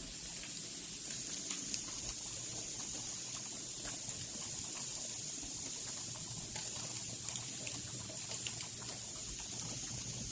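Icy precipitation falling, a steady high hiss with scattered light ticks of pellets or drops striking surfaces.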